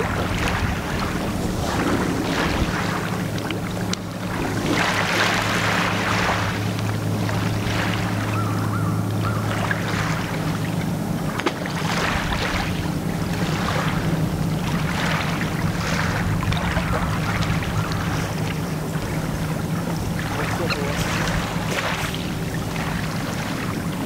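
A motor running steadily with a low hum, under rushing noise that swells and fades every second or two.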